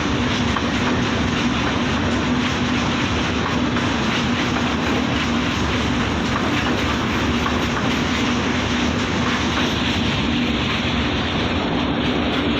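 Express passenger train rolling past on the rails: a steady, loud rumble of coaches and wheels, with a steady low hum running under it.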